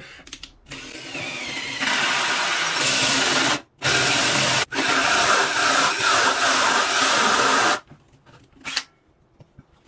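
Power drill cutting a hole through a desktop for a pop-up outlet. The motor winds up about a second in, then runs under load in three long stretches, with short breaks at about three and a half and four and a half seconds. It stops near eight seconds, followed by a couple of light knocks.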